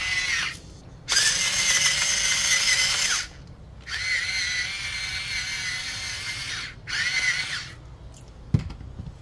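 Small motor of an electric pepper grinder whirring with a thin wavering whine as it grinds black pepper. It runs in four spells, the first stopping about half a second in and the last a short one near the end.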